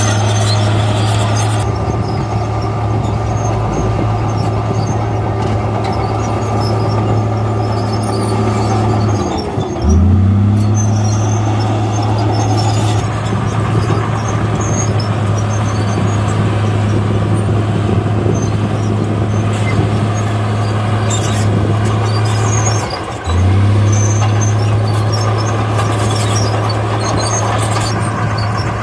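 Heavy construction machine's diesel engine running steadily under load; twice its pitch dips briefly and climbs back up as it bogs and recovers.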